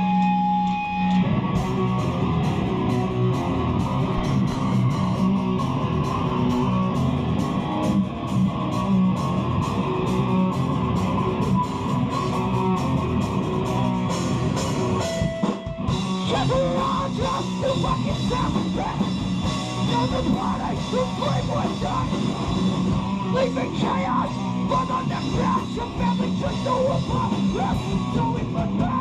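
Hardcore band playing live and loud: electric guitars over a drum kit with steady cymbal hits, dropping out for a split second about halfway through before crashing back in.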